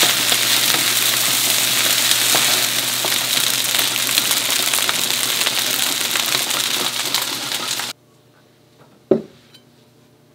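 Fried rice sizzling in a hot frying pan while a wooden spatula stirs and scrapes it, steady and loud. The sizzle cuts off suddenly about eight seconds in, and a single short knock follows about a second later.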